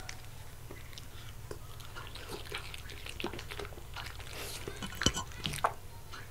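West Highland terrier chewing grilled lamb, a run of wet clicks and smacks of its mouth picked up close by a microphone beside the plate, with a few sharper snaps about five seconds in.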